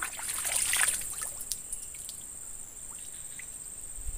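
Swamp water splashing and sloshing for about the first second as a toman (giant snakehead) is let go from the hands back into the water, then settling. A steady high-pitched insect drone runs underneath throughout.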